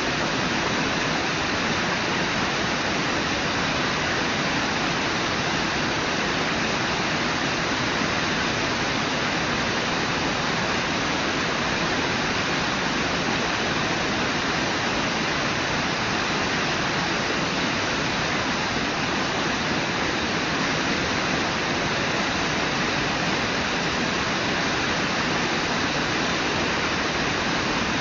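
Brooks Falls on the Brooks River rushing: the steady, unbroken roar of falling water.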